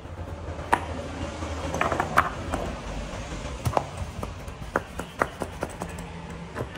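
Rough stones knocking and clacking against each other as they are set by hand into wet mud: irregular sharp clicks and knocks, more frequent in the second half.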